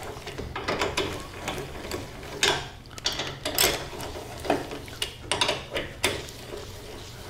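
Hand ratchet wrench clicking in short back-and-forth strokes as it runs down the bolts on the spring plate cover of a VW swing-axle rear suspension, drawing the cover in gradually.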